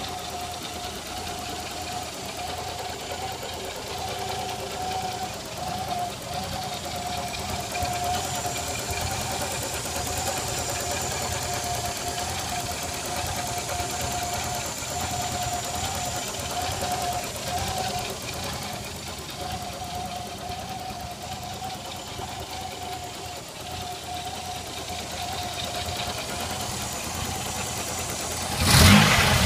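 1986 Nissan 300ZX V6 idling with a steady, slightly wavering whistle from a vacuum leak. The engine is revved up near the end.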